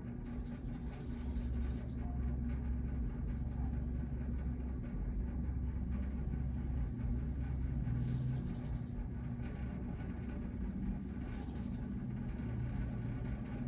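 A steady low rumble and hum, with a few short soft hisses about a second in, around eight seconds in, and near the end.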